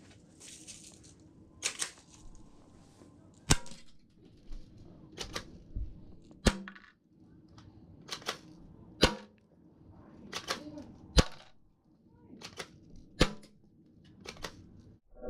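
Airsoft gun fired in single shots: about a dozen sharp snaps at irregular intervals of one to two seconds.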